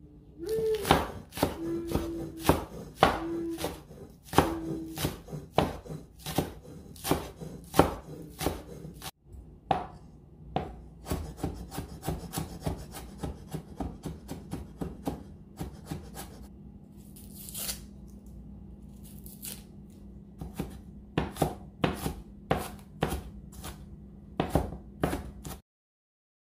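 A kitchen knife chopping vegetables on a wooden cutting board: green onions, then carrots diced with a cleaver. The blade knocks on the board in quick, uneven strokes, and the sound cuts off suddenly near the end.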